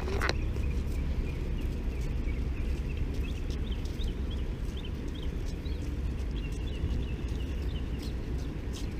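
Steady low outdoor rumble, with a run of faint high chirps from about three seconds in until near the end.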